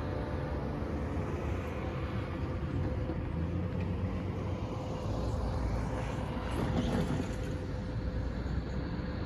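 Diesel locomotive running close by: a steady low engine rumble with a thin steady whine above it, swelling slightly about two-thirds of the way through.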